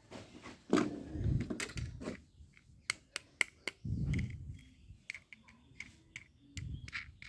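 Plastic toy vehicles being handled: a series of sharp clicks and soft knocks, with a run of four quick clicks in the middle.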